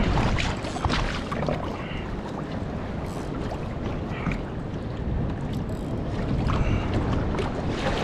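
Wind rumbling on the microphone, with choppy sea water splashing against a kayak's hull.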